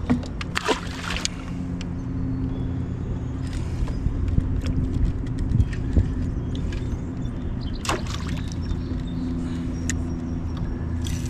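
Boat motor running with a steady low hum, with scattered clicks and knocks from rod and reel handling.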